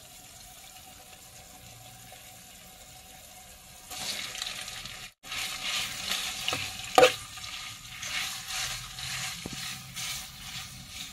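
Boiled instant noodles sizzling in fried masala as a metal spatula stirs and scrapes them around the frying pan, with a sharp clack about seven seconds in. Before the stirring starts, about four seconds in, there is only a faint steady hum.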